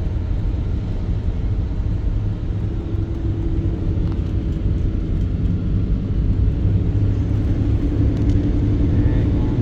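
Car driving at speed: steady low rumble of road and engine noise, with a steady hum that grows stronger from about three seconds in.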